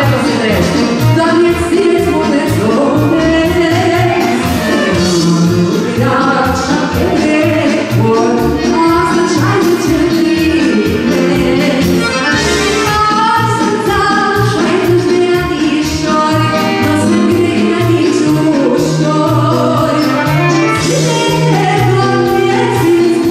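Folk dance music led by an accordion, with singing over a steady beat.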